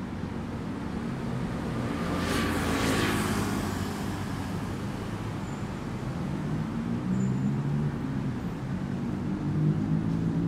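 Road traffic going by. A vehicle passes close about two seconds in, its rush swelling and falling away. A heavier engine drone grows louder near the end.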